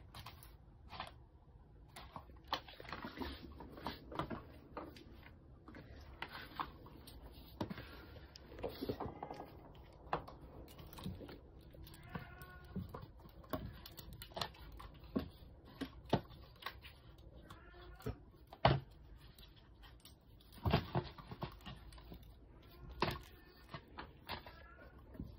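A kitten playing on a tile floor: scattered light taps, scrabbles and rustles of paws and claws on the tiles and against a plastic bag and a wire cage, with a sharper knock about two-thirds of the way through.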